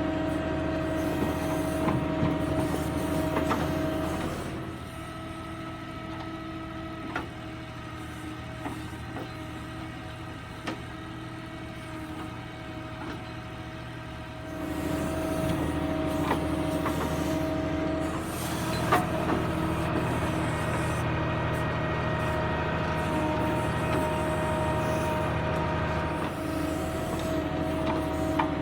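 Diesel tractor engine driving a tractor-mounted backhoe loader as it digs and loads mud, running steadily under load. The revs drop at about five seconds and rise again about halfway through, with a few sharp metal clanks.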